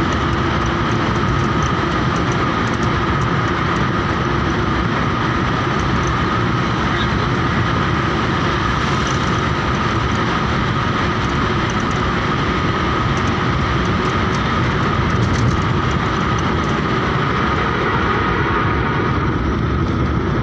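Steady road and engine noise of a moving car heard from inside the cabin while driving through a road tunnel, with a constant high hum running through it.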